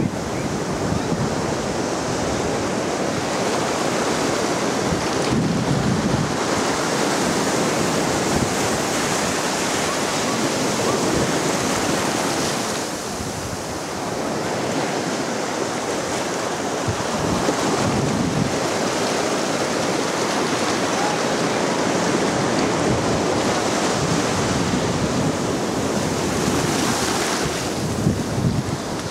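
Shallow ocean surf washing and fizzing over sand in a steady hiss, with gusts of wind buffeting the microphone now and then.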